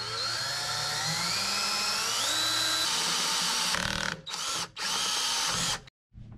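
Cordless drill boring a hole through the steel mower deck: the motor's whine rises in pitch over the first couple of seconds, then the drill stops and restarts twice in quick succession and cuts off near the end.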